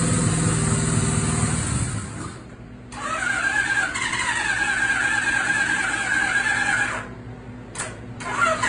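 Suzuki GS850 air-cooled inline-four running unevenly, then dying about two seconds in. The electric starter then cranks it with a steady whine for about four seconds without it catching, followed by short stabs of the starter near the end. This is a first start after a rebuild, with the valves not yet adjusted to spec.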